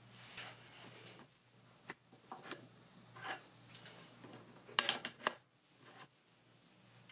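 Steel tool holder being slid off and back onto the dovetail of a quick change tool post: light metal scrapes and clicks, then a few sharp metal clacks about five seconds in as the holder is seated again.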